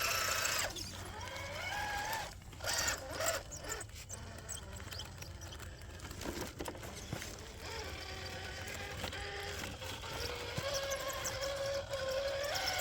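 Traxxas TRX-4 RC crawler's electric motor and drivetrain whining as it drives on Deep Terrain Traxx tracks, the pitch rising and falling with the throttle.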